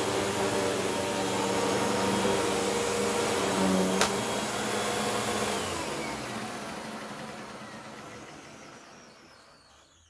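Hoover WindTunnel T-Series Purely Clean upright vacuum running steadily, then a sharp click about four seconds in as it is switched off. The motor winds down, its pitch falling, and fades out.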